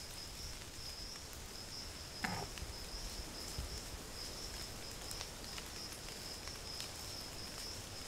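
Night insects trilling steadily at a high pitch, in a faint continuous chorus. A brief soft knock sounds a little over two seconds in.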